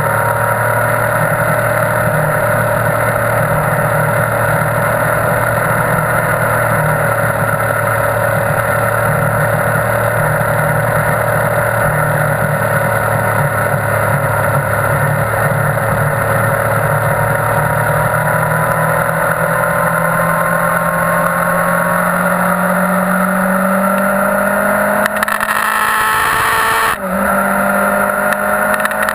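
2001 Yamaha YZF-R1's inline-four engine running hard at high revs, heard onboard over wind rush. Its pitch sags slowly and climbs again through a long corner, then rises and drops suddenly near the end as it shifts up a gear.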